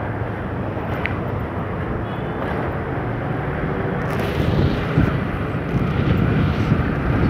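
Motorcycle riding along a city street: a steady mix of engine, road and wind noise on the microphone, growing a little louder about four seconds in.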